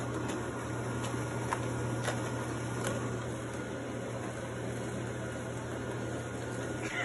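A steady low mechanical hum with a faint hiss, as of a small motor or appliance running, with a few faint ticks.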